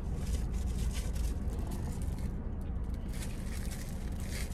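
Steady low rumble inside a parked car's cabin, with faint rustling and small clicks as a purse is rummaged through for a plastic-wrapped fork.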